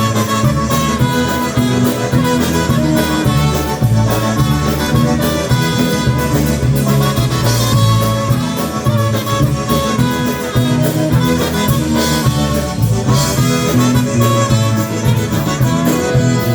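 Live polka band playing an instrumental introduction, with the accordion leading over bass and drums at a steady beat.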